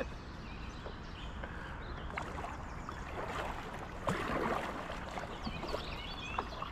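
Water lapping and trickling against a kayak's hull, with a few soft paddle dips.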